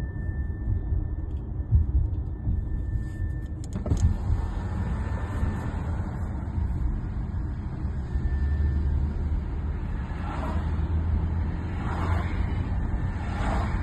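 Audi A7 being driven, with a steady low road and engine rumble and a squeak over it: a thin, high, steady squeal for the first few seconds, then near the end short squeaks about every second and a half.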